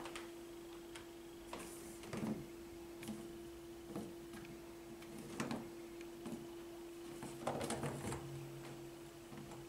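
Scattered light knocks and taps of a kitten playing with a small toy on a wooden parquet floor, with a short cluster of taps near the end, over a steady low hum.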